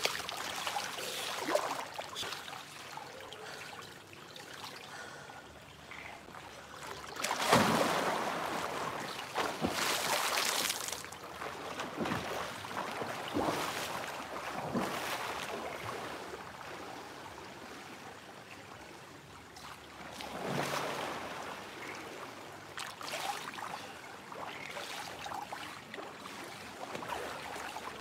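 Pool water splashing and sloshing as a person swims close by, with louder surges of splashing about a third of the way in and again past two thirds, over a steady wash of rain falling on the water.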